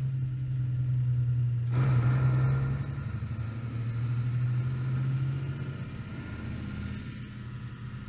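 Engines of heavy military trucks running as they drive past one after another, a steady low drone that grows louder about two seconds in and eases off near six seconds.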